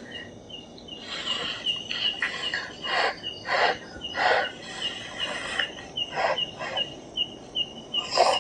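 A night insect chirping steadily in the forest, short high chirps about three a second. Over it come louder bursts of someone slurping and eating cup instant noodles, loudest a few seconds in.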